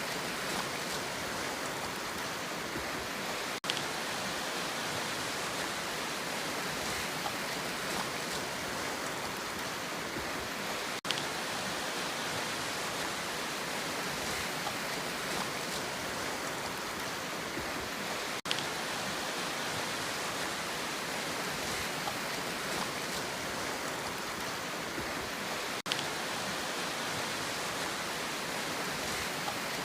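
Sea surf as a steady, rushing wash of noise, with no single waves standing out. A brief click-like dropout cuts in about every seven and a half seconds.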